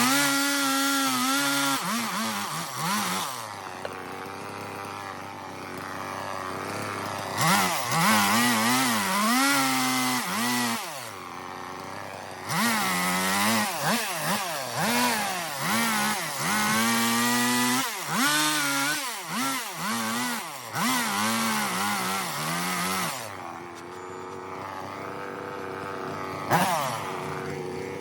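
Chainsaw cutting into a log of dry cedar wood, its engine pitch dipping and recovering many times as the chain bites and is eased off, with a couple of steadier stretches of running between cuts.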